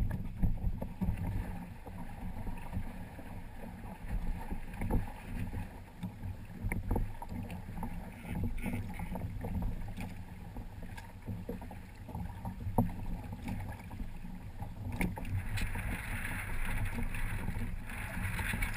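Water rushing and splashing along the hull of a Hobie Tandem Island sailing kayak under way, with irregular slaps of chop and wind on the microphone. A louder hiss of spray comes in a few seconds before the end.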